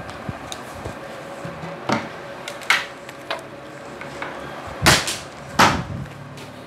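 A handful of sharp knocks and clatters, the two loudest about five and five and a half seconds in, over a faint steady hum.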